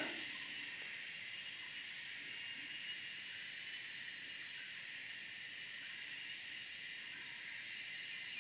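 Steady high-pitched chorus of night insects: an even hiss with a few held ringing tones, nothing else standing out.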